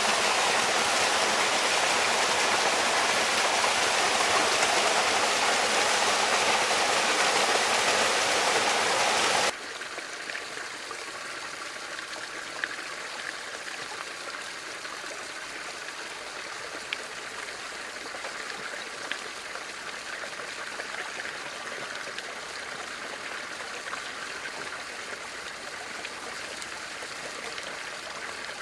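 Water running in a bamboo water fountain: a loud steady rush that drops abruptly about ten seconds in to a quieter trickle, with a few faint drips.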